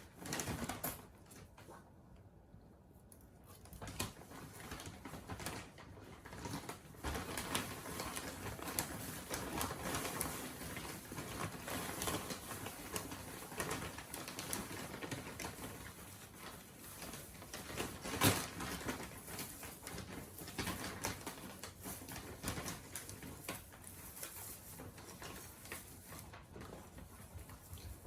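Black Shiba Inu grumbling with low, throaty growls on and off, an affectionate rather than angry growl. A single sharp knock about 18 seconds in.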